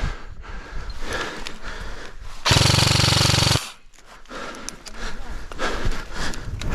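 Airsoft electric gun firing one full-auto burst of about a second, a fast rattling buzz, a little before the middle. Quieter rustling and small clicks of gear and movement surround it.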